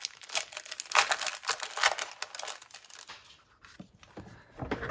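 Mail packaging crinkling and rustling in irregular bursts as a package is opened by hand, thinning out after about three seconds.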